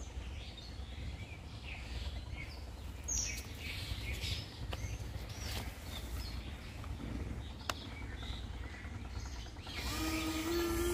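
Birds chirping over a low steady outdoor rumble, with a single sharp click near eight seconds. About ten seconds in, the mini RC boat's small electric motors start, a steady whine from the two ducted propellers that edges up slightly in pitch.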